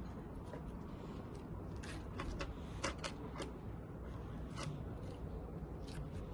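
Slime being pressed and flattened by hand, giving a handful of short, soft sticky clicks, most of them in the middle and one near the end, over a quiet room background.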